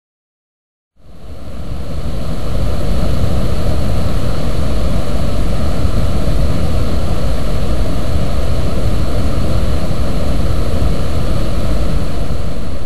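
Rushing water: a loud, steady rush with a heavy low rumble that swells in after about a second of silence and then holds.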